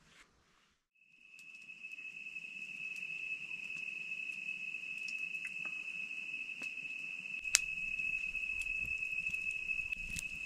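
Night insects keep up a steady, unbroken high-pitched call that starts about a second in. Scattered crackles and pops from a wood fire sound over it, one sharp pop a little past halfway.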